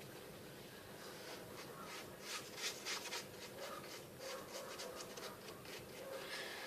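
Paintbrush strokes on a cardboard surface: faint, irregular scratchy brushing and dabbing, several strokes a second from about a second and a half in.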